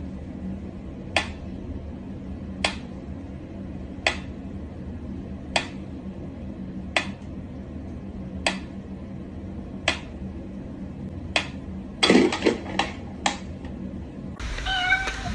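A cat meowing near the end, after a run of sharp, evenly spaced clicks about every second and a half over a steady low hum.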